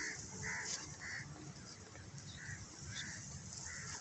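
A bird calling in a series of short, same-pitched notes, about two a second, with a pause in the middle, over a faint low rumble.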